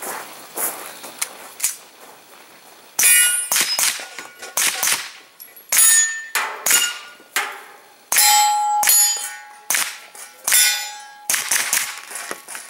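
A string of pistol-caliber carbine shots fired in quick succession from about three seconds in, roughly one or two a second. Many are followed by a short ringing tone from a steel target being hit.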